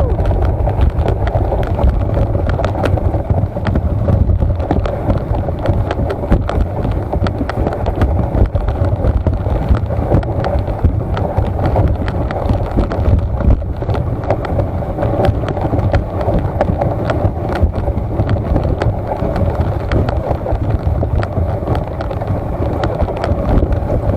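Steady, loud rumble of a moving vehicle with wind noise on the microphone and a dense crackle of small clicks throughout.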